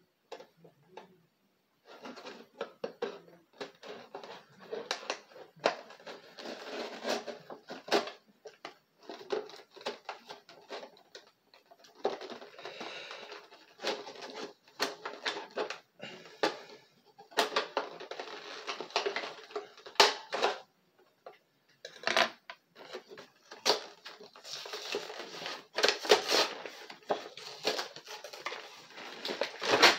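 Action figure packaging being opened by hand: the cardboard box and clear plastic tray crinkle and crackle, with irregular sharp clicks and snaps, starting about two seconds in.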